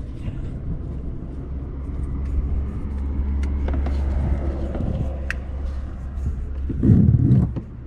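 A car's low engine and road rumble swelling and fading as it passes, with a short louder thump near the end.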